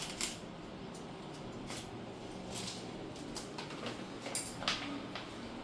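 Scattered light clicks and taps from hands working on a refrigerator under repair, over a faint steady hum.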